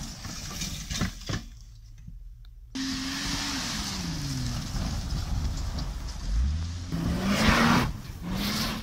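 Holden Commodore sedan's engine under hard driving on grass, the revs falling and rising over and over from about three seconds in, with a loud rush of spinning tyres and thrown dirt near the end.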